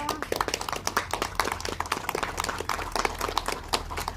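Small audience applauding: many separate hand claps, irregular and close together.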